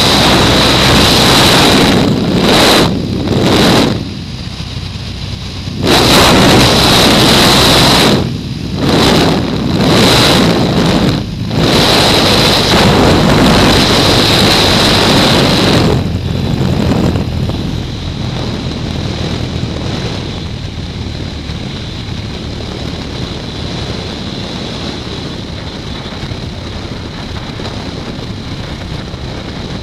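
Light aircraft's engine and propeller, heard from inside the cabin, running loud on the final approach with a faint steady whine, the noise dipping briefly several times. About sixteen seconds in it falls to a lower, steady level as the plane rolls along the runway after landing.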